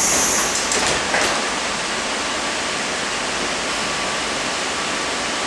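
Steady hiss and hum inside a stationary Sydney Trains K-set electric multiple unit carriage: its onboard air-conditioning and equipment running. A brief high hiss and a couple of clicks come in the first second or so.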